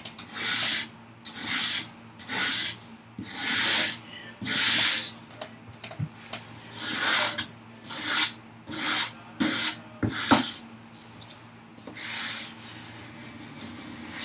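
Hand sanding of the top edge of a wooden vise chop: about a dozen rasping strokes, roughly one a second, working out plane chatter marks. A sharp knock comes about ten seconds in, and the strokes stop a couple of seconds before the end.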